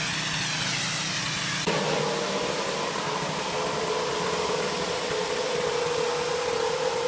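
Pressure washer's engine and pump running steadily. The sound changes abruptly about two seconds in, then carries on as an even, steady tone.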